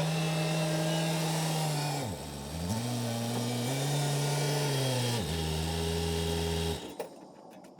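Backhoe engine running with a steady pitched drone. Its pitch dips and recovers about two seconds in, then drops again after five seconds as the revs change while it creeps forward. The sound cuts off about seven seconds in, leaving only faint clicks.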